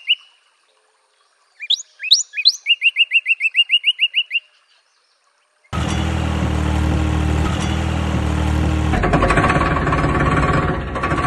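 Bird chirping in two short runs, each a few rising sweeps followed by a quick string of repeated notes, with dead silence between. About six seconds in a steady engine-like running sound starts, and it changes in tone about three seconds later.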